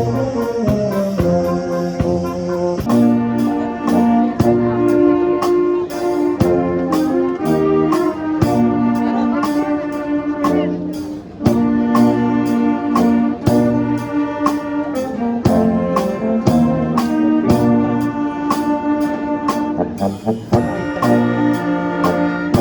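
Music led by brass instruments, held notes changing every second or so over a steady beat.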